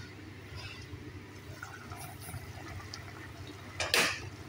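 Pot of chicken in tomato and spice broth bubbling at a boil. Near the end comes a brief, louder clatter as the pot lid is lifted off.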